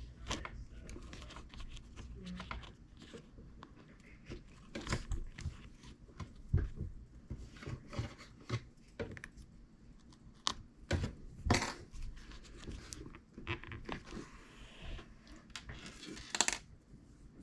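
Quiet, irregular handling sounds of hand-stitching a leather steering wheel wrap: scattered rustles, scrapes and small clicks as the leather and thread are worked and pulled tight.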